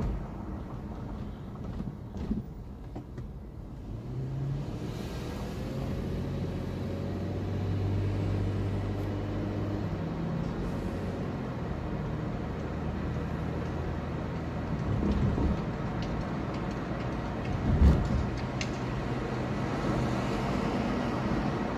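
Car driving, heard from inside the cabin: steady road and engine rumble with a low engine hum that shifts in pitch, and a single thump late on.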